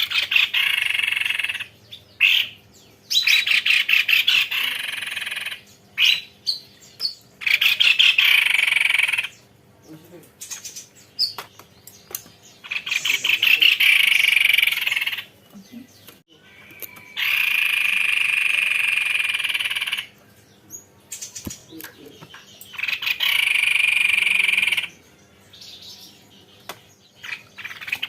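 A tepus leher putih babbler singing long rolling trills: bouts of rapidly repeated, rattling notes, each lasting one to three seconds, about seven of them with short pauses between.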